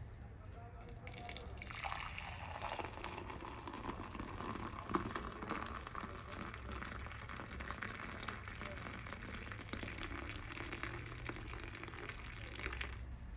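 Hot milky drink pouring in a thin, steady stream into a ceramic mug and filling it with froth. The pour starts about a second and a half in and stops shortly before the end.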